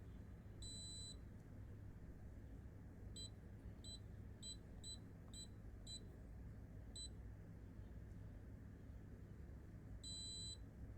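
Smart-lock keypad beeping faintly: one longer beep, then seven short key-press beeps over about four seconds, then another longer beep near the end.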